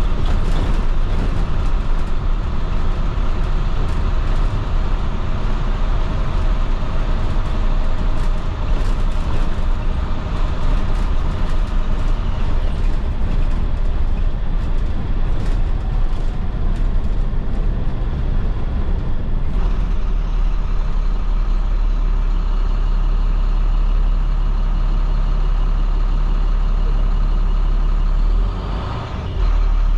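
A 2010 IC FE school bus's International MaxxForce DT inline-six diesel runs under way, with road noise and many light rattles. About two-thirds of the way in, the sound changes to a steadier, smoother engine note, and there is a brief drop in level near the end.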